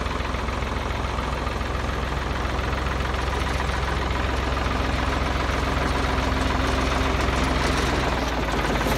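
Ford farm tractor engine running steadily at idle.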